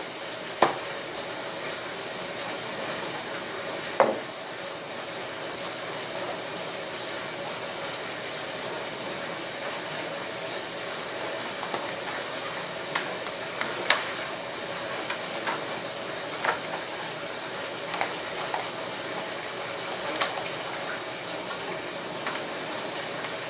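Thin plastic covering film rustling and crinkling as hands stretch it tight over a light wooden frame, with a handful of short sharp clicks scattered through.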